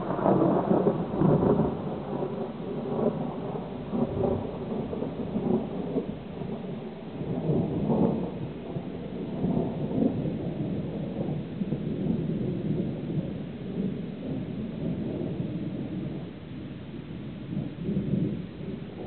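A long, rolling peal of thunder. It breaks in suddenly and is loudest in the first couple of seconds, then rumbles on in uneven swells that slowly die down, with one more swell near the end.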